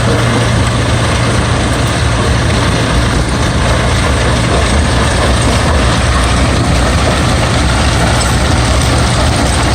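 Rebel Crusher mobile jaw crushing and screening plant running: a steady, loud diesel-engine drone with a constant low hum under an even machinery rumble.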